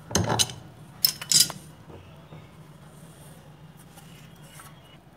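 A metal wrench clinking against a brass pipe fitting while the fitting is tightened: a few sharp metallic clicks in the first second and a half.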